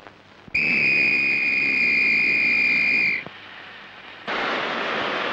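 A railway guard's hand whistle blown in one steady, high blast of about two and a half seconds, the signal for the train to start. About a second after it stops, a steady hiss of steam from the steam locomotive starts up.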